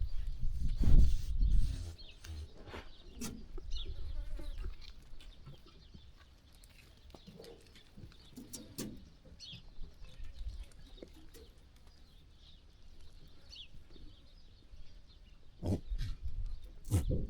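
Sheep farm ambience: sheep moving and grazing, with scattered knocks and rustles and a few short high chirps. A low rumble fills the first two seconds, and the loudest knocks come near the end.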